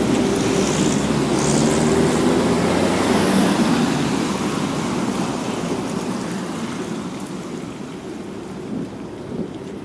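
Cars passing close by on a wet city street: engine hum and tyre hiss on wet asphalt, loudest in the first few seconds and fading away toward the end.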